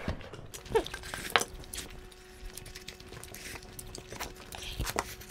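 Quiet eating by hand from steel plates: scattered soft clicks of fingers and food against the metal, and chewing. A brief falling squeak comes about a second in.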